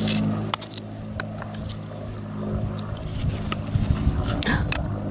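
Flat pieces of split stone clicking and scraping against each other as a hand pulls them apart, in a string of sharp, irregular clicks. A steady low hum runs underneath.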